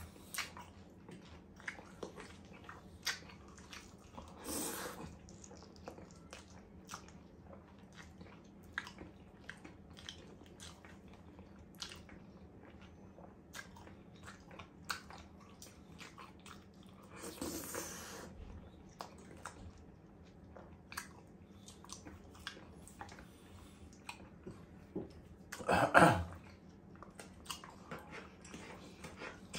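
Close-up chewing and mouth sounds of a person eating steak and mashed potato with gravy: many small wet clicks and smacks. A few louder mouth noises break in, the loudest about three seconds before the end.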